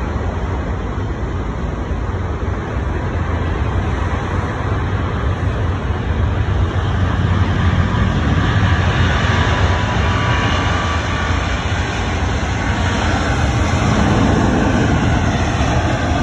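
Jet engine noise of a Delta Air Lines Airbus A350 rolling along the runway: a loud, steady rumble and roar that grows a little louder and brighter after about eight seconds.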